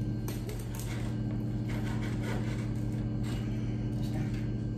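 A knife cutting through crispy fried skin on a wooden board: scattered faint crackles and crunches over a steady low hum.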